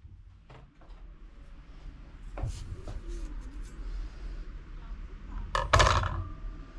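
A 160 mm SRAM Centerline steel disc brake rotor set down on a plastic kitchen scale: a quick clatter of clicks near the end, and the disc rings briefly after it. A softer knock comes about two and a half seconds in.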